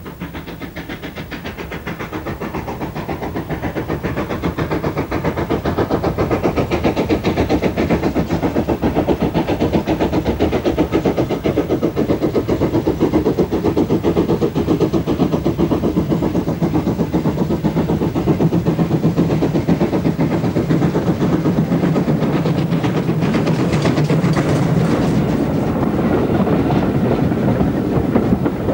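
Great Western 0-6-0 pannier tank steam locomotive working a passenger train, its rapid exhaust beats growing louder over the first few seconds as it approaches, then holding steady as it passes. Near the end the coaches roll by.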